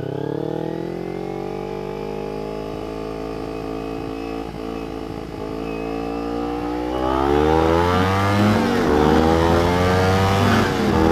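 Kawasaki Ninja 250 motorcycle engine revving up under hard acceleration in a race, its pitch climbing steadily. It gets louder about seven seconds in, and the pitch drops sharply twice as it shifts up.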